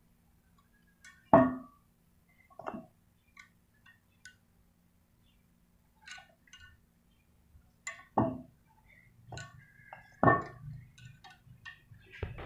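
Irregular sharp metallic clinks of a steel hand tool against a truck driveshaft's cross joint (universal joint) bearing cups and yoke, as the joint is fitted. The loudest strikes come about a second in and twice in the last third, with lighter ticks in between.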